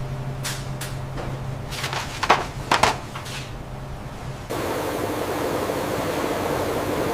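Factory machinery running with a steady low hum and a handful of short clattering knocks, then an abrupt change, about four and a half seconds in, to a louder steady rushing noise with a hum.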